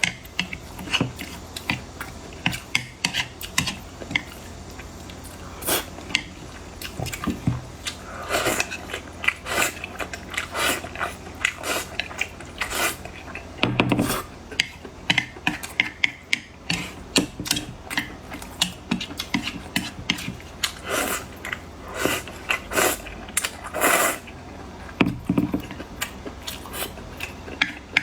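Close-miked eating: chewing and biting with many sharp crackling clicks and a few heavier thuds.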